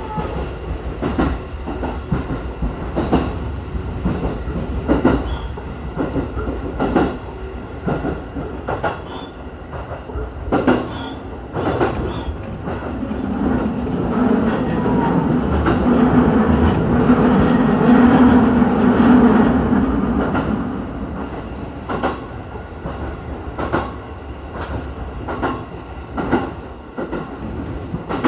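Ome Line electric train running, heard from its front car: wheels clacking over rail joints every second or two under a steady rumble. About halfway through, the rumble swells louder and fuller, then eases off several seconds later.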